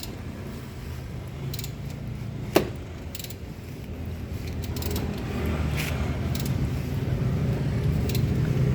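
Metal tools and parts clinking while being handled, with one sharp metallic clank about two and a half seconds in, over a low steady mechanical hum.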